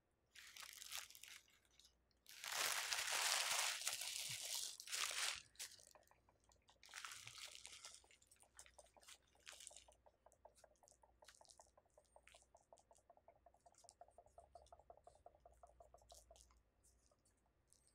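Plastic takeout packaging being handled: crinkling and crunching of the salad container and ranch dressing cup, loudest between about two and five seconds in, followed by a long run of faint, quick ticks.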